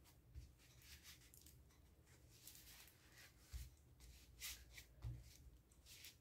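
Faint rustling of fabric being pressed and smoothed by hand, with a few soft low bumps from handling.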